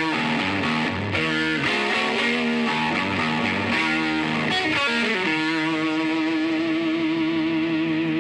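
Background music: distorted electric guitar rock, with a long sustained note from about five seconds in.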